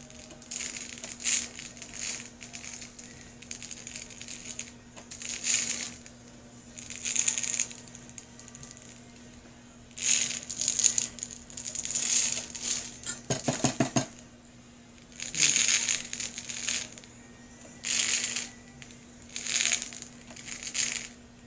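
Pink glitter rattling in a plastic shaker jar as it is shaken out in short bursts, about a dozen shakes with pauses between.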